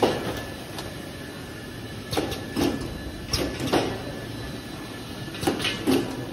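Automatic bottle filling and capping line running: a steady machine hum with a thin high whine, and short clusters of plastic and metal clacks every second or two as the capping head works and bottles knock along the conveyor.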